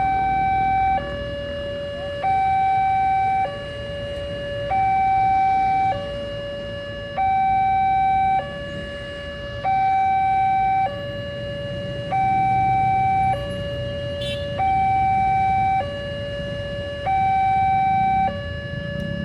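Railway level-crossing alarm siren sounding its steady two-tone warning, alternating between a higher and a lower tone about every second and a quarter, the signal that a train is approaching. A low rumble runs underneath.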